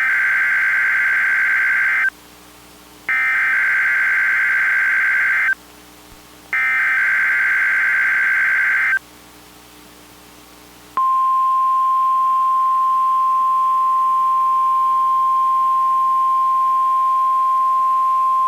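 NOAA Weather Radio SAME alert header: three bursts of buzzy digital data tones, each about two seconds long with a second's gap between them. About eleven seconds in, the steady 1050 Hz weather radio warning alarm tone starts and holds; it is the alert for the weekly test.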